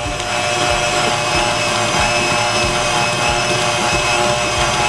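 KitchenAid stand mixer running steadily, its motor humming with a constant high whine as the beater works the creamed butter and sugar.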